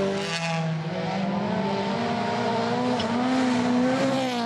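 Rally car engine running hard at high revs. Its pitch drops with a gear change about a second in, then climbs slowly as the car accelerates.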